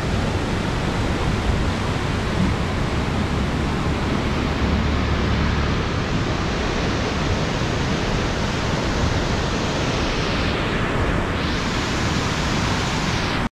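Floodwater rushing through the open sluice gates of a river barrage and churning past the piers below, a loud, even rushing hiss that turns briefly duller about eleven seconds in.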